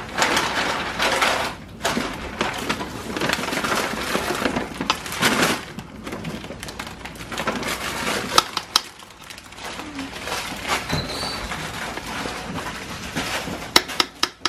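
Beef sizzling as it browns in a cooking pot, louder in the first half and softer after, with a few sharp clinks of cookware about eight seconds in and again near the end.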